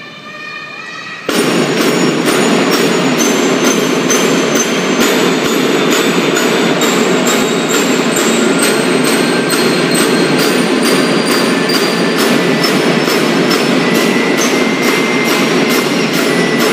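Children's marching drum band starting up loudly about a second in: a steady beat of snare and bass drums with bright bell-lyre notes ringing over it.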